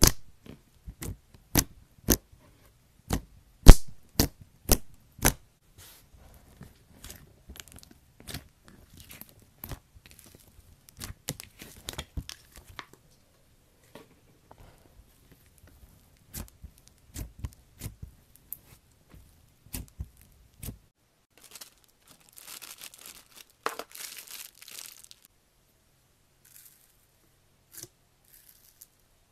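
Slime squished and poked by hand, making sharp pops and clicks, a little under two a second and loud at first, then quieter and more scattered. About two-thirds of the way through there is a few seconds of dense crackling.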